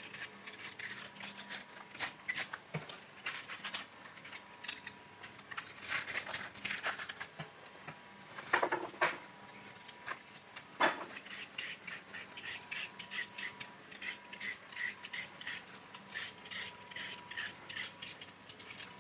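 Hand-peeling vegetables: a kitchen knife scraping and cutting papery skin from an onion, then a vegetable peeler scraping down a carrot in quick repeated strokes, about two to three a second towards the end. There are a couple of sharper scrapes or knocks around the middle.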